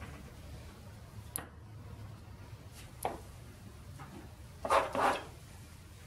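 Oil paint being laid on a stretched canvas with brush or painting-knife strokes: a couple of faint taps, then two louder rasping strokes in quick succession near the end.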